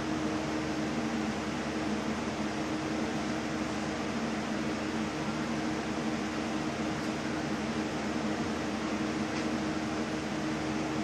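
A fan running steadily: a constant whir with a low, unchanging hum.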